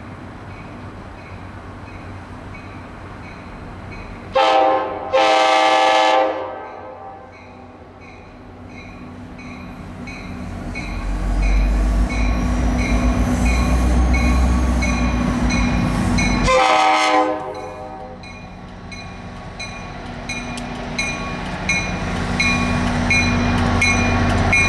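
Locomotive horn: a short blast and then a longer one about four seconds in, each a chord of several tones. The train's rumble then builds as it comes close, the horn gives a third blast around sixteen seconds in, and the railcar wheels clack rhythmically over the rail joints as they pass. A bell dings steadily about twice a second.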